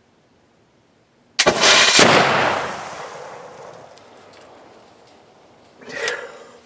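A Traditions PA Pellet flintlock muzzleloader fires: a sharp crack about a second and a half in, then a louder boom half a second later. The report echoes away over the next few seconds.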